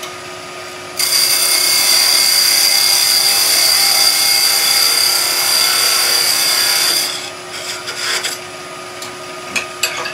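Woodturning lathe running with a steady hum while a turning tool cuts into a spinning tulipwood spindle from about a second in for some six seconds: a loud, even scrape with a high steady tone, a sizing cut taken with calipers in the groove. A few short scrapes and light clicks follow near the end.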